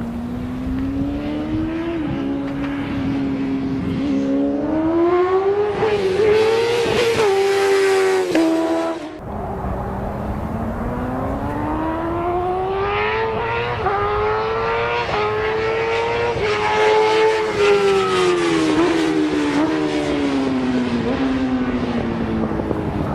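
Motorcycle engine at racing speed, pitch climbing in steps as it shifts up through the gears, then falling in steps as it shifts down. About nine seconds in the sound drops out sharply for a moment before the engine pulls hard again.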